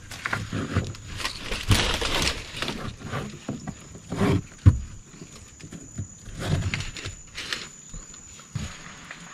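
Irregular knocks, thumps and scuffs from gear being handled and people moving about, with the loudest bumps about two seconds in and just before halfway. A thin, steady high-pitched whine runs underneath.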